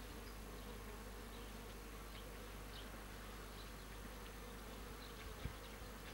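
Honeybees buzzing in flight at the entrance of a hive, a steady hum. A brief low bump sounds near the end.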